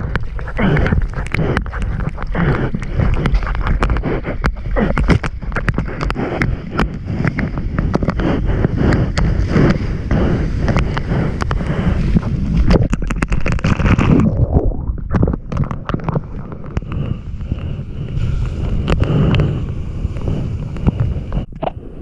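Seawater rushing and splashing against an action camera at the surface, with wind buffeting the microphone. About two-thirds of the way in the sound turns suddenly duller and more muffled.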